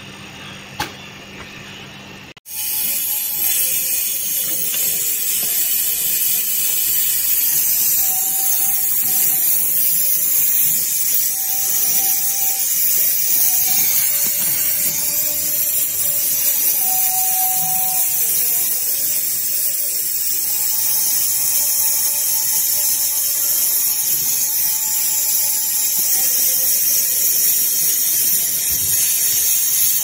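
Gas brazing torch flame hissing steadily while the copper discharge and suction lines are brazed onto a replacement refrigerator compressor; the hiss starts suddenly about two seconds in.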